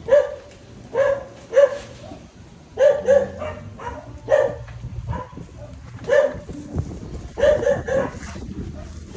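A dog barking repeatedly, short sharp barks coming singly and in quick runs of two or three.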